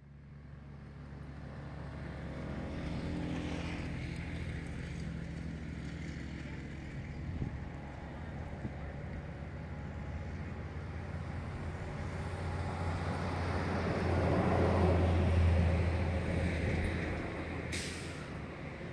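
Royal Enfield Meteor 350's single-cylinder engine running steadily while riding, with road and wind noise. The sound swells louder about three-quarters of the way through, and there is a short sharp click near the end.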